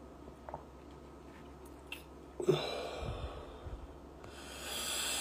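A man's breath noises close to a phone microphone: a sudden noisy sound about halfway through, then a long rising breath near the end, over faint hiss.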